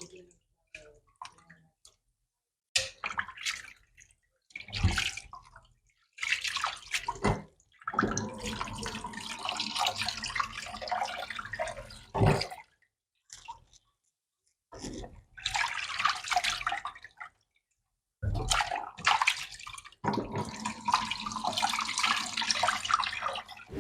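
Hands washing fish in a bowl of water: splashing and sloshing in several separate bursts with silent gaps between, the longest about a third of the way in and near the end.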